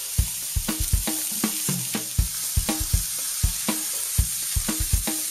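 Chicken breasts sizzling as they sear in olive oil in a skillet, a steady hiss with frequent sharp clicks, a few a second, as the pieces are handled in the pan.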